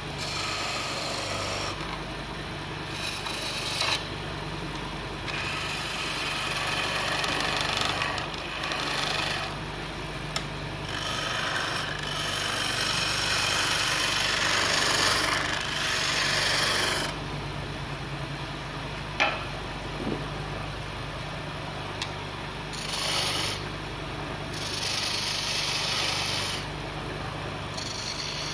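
Flat file scraping against a mahogany handle spinning on a wood lathe, in stretches of a few seconds with brief breaks, over the steady hum of the lathe's motor.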